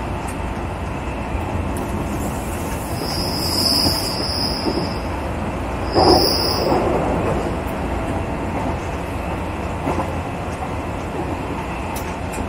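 JR West local commuter train running on rails with a steady rumble. About three seconds in, a high wheel squeal starts and lasts nearly two seconds. It returns briefly at about six seconds, together with a heavy knock that is the loudest moment, the squeal of wheel flanges on a curve.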